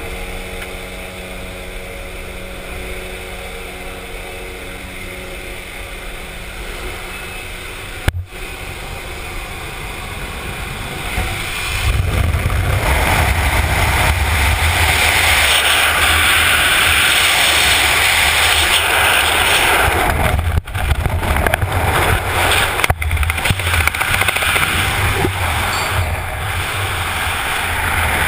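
Jump plane's engine droning inside the cabin, a steady hum with several steady low tones. After a sudden break, loud wind rushes over the helmet microphone at the open door and in the fall, starting about twelve seconds in.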